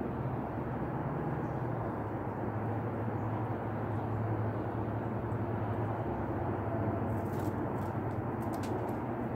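Steady low hum of outdoor background noise, with a few faint ticks near the end.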